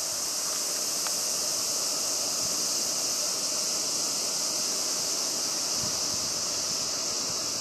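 Wind rushing and buffeting over the microphone of a camera riding on a moving bicycle, with a steady high-pitched hiss throughout.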